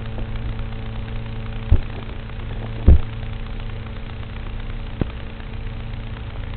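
FPV quadcopter's motors and propellers buzzing at a steady pitch, picked up by the onboard camera, with two short low thumps about two and three seconds in.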